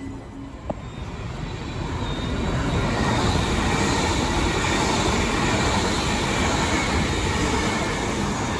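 Queensland Rail electric passenger train running alongside the platform as it pulls in. The rumble and rail noise build over the first few seconds, hold steady, then ease a little near the end.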